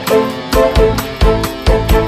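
Background music with a steady beat: an instrumental stretch of a song, without singing.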